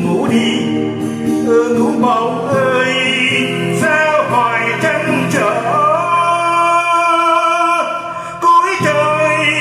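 A man singing a Vietnamese song with acoustic guitar accompaniment.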